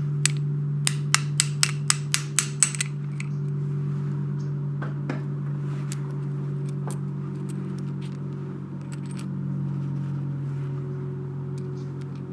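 Small steel parts of a 1947 Snap-on GM-70M ratchet clicking as they are handled and worked: a quick, even run of about eight sharp metallic clicks in the first three seconds, then a few scattered light clicks. A steady low hum runs underneath.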